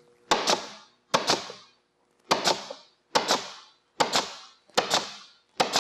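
Pneumatic staple gun firing seven times, about one shot a second, each a sharp snap followed by a short hiss of exhaust air, driving staples through the soft-top fabric into the header bow.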